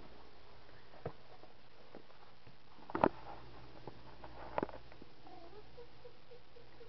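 Handling noise as a leather baseball glove is picked up from a closet: a few soft knocks and rustles, the loudest about three seconds in, over a faint steady hum.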